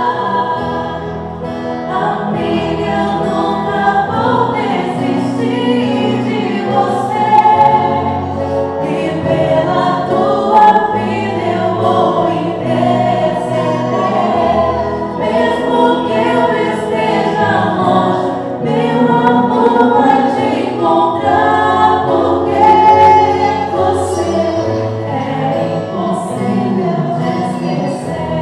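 A choir singing a slow gospel-style song, with sustained bass notes underneath.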